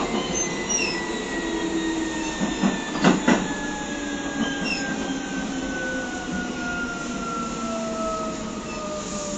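Keio 7000 series field-chopper electric train running, heard from aboard motor car DeHa 7052 as it slows for the Fuchu stop: several whining tones fall steadily in pitch as the speed drops. Two knocks come about three seconds in.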